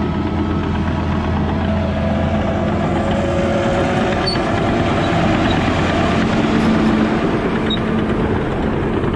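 John Deere 850 crawler dozer's diesel engine running under load as it pushes dirt into a trench, steady, getting somewhat louder a few seconds in as the machine works close by.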